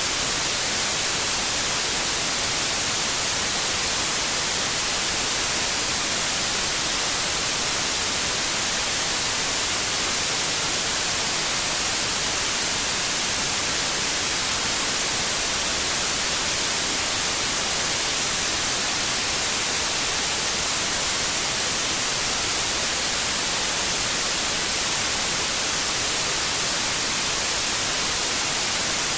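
Steady white noise: an even, unbroken hiss with no tones or rhythm, strongest in the high end.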